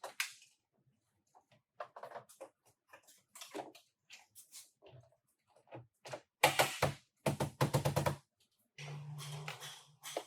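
Irregular clicks and taps of tools and parts being handled during car body repair. About six seconds in, a small power tool runs in a few short pulsing bursts, then runs steadily for about a second near the end.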